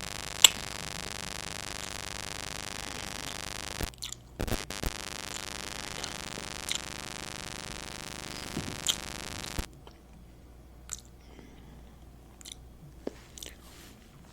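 A person biting and chewing food close to the microphone, with a few sharp crisp bites. A steady electrical hum runs under it and cuts off about two-thirds of the way through.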